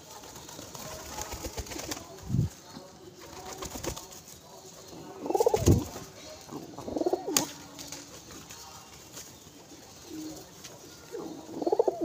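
Rock pigeons cooing in a few short bouts, about five seconds in, again at seven seconds and near the end, with dull thumps and wing flutters from birds landing and jostling on a hand held out with grain.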